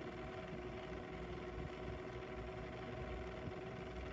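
Box fan running with a steady hum and an abnormal drone, the noise it is not supposed to make: the fan is faulty.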